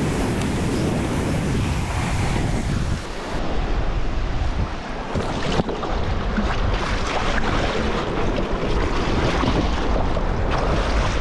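Strong wind buffeting a chest-mounted GoPro's microphone over the wash of sea water, a steady rough rumble. A single sharp knock about five and a half seconds in.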